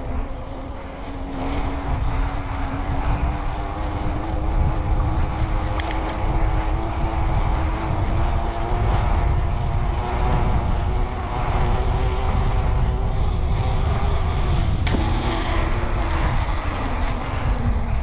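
Mountain bike rolling fast over smooth concrete, its knobby tyres giving a steady droning hum under heavy wind rumble on the handlebar camera. Two sharp clicks come about 6 and 15 seconds in.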